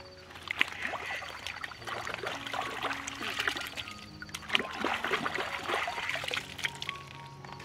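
Water splashing and trickling as a peeled papaya is dipped and rinsed by hand in shallow river water, with irregular small splashes and water running off the fruit.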